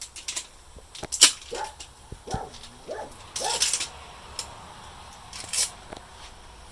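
Handling of sticky tire plug strips and a plug insertion tool: scattered clicks and rustles, with a few short squeaks as the strips pull apart.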